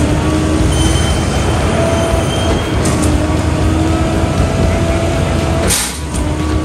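Concrete mixer truck's diesel engine running as the truck rolls slowly forward, with a short hiss of its air brakes near the end.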